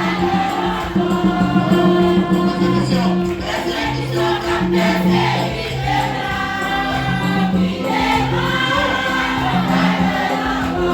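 Church choir singing a hymn with instrumental accompaniment, over a bass line that steps between held low notes.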